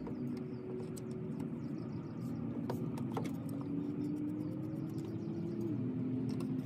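A steady engine hum from a running vehicle, its pitch sagging slowly and then dropping a step near the end, with scattered light clicks of hand tools being handled.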